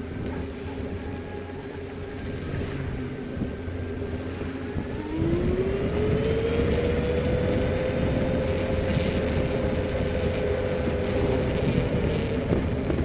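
Engine of a moving vehicle, with road and wind noise; about five seconds in the engine note rises in pitch and gets louder as it speeds up, then holds steady.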